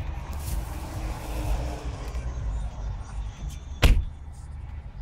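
A car door slams shut about four seconds in, sharp and loud, over a steady low rumble of highway traffic.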